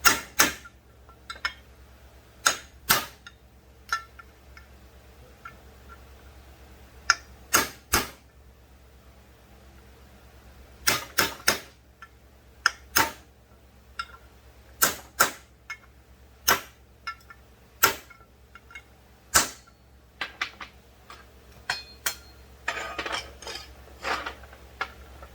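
Hammer driving a punch against a crank bearing to knock it out of a chainsaw crankcase: about twenty sharp metallic strikes, singly or in quick pairs, with irregular pauses between them. A brief clatter comes near the end.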